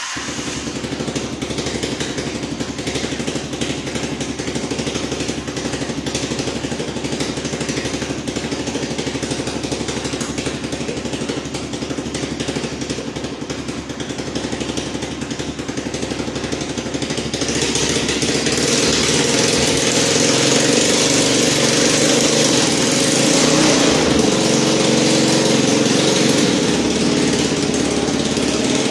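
Small engine of a homemade vehicle running steadily. About seventeen seconds in it is revved up, running louder and harsher until near the end.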